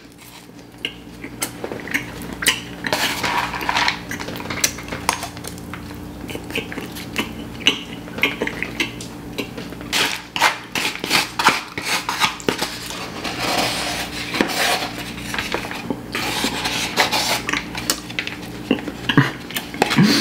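Metal spoon scraping and tapping inside a foam cup while scooping biryani rice, in many short irregular scrapes and clicks.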